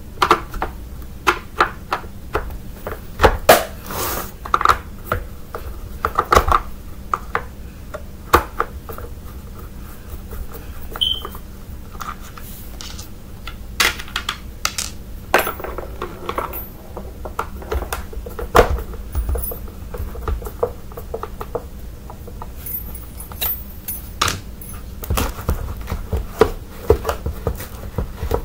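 Irregular clicks, taps and knocks of the plastic housing of a Bissell Powerforce Bagless vacuum being handled and unscrewed with a screwdriver.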